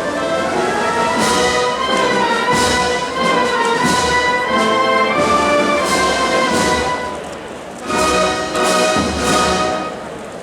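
Wind band of brass and woodwinds playing a slow processional march, with regular drum strokes every second or so. The music eases briefly about three-quarters of the way through, then swells again.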